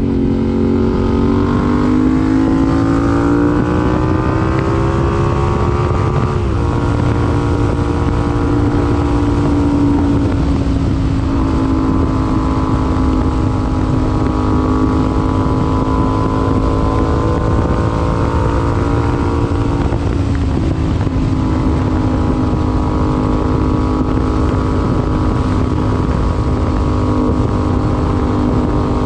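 Yamaha MT-07's parallel-twin engine, A2-restricted to 35 kW, running through an IXIL IXRACE MK2 aftermarket exhaust while riding. It rises in pitch through the revs for the first six seconds, drops briefly at about six, ten and twenty seconds in, and otherwise holds a steady cruise. Wind rumbles on the microphone throughout.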